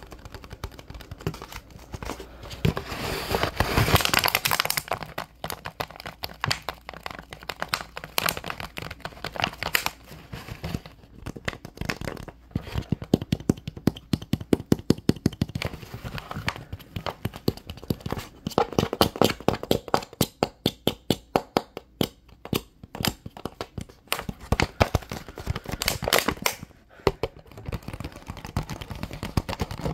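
Fingertips and nails tapping on a plastic water bottle with water in it, giving a long run of sharp quick taps. Stretches of crinkling, squeezed plastic come between the taps, the longest about two to five seconds in.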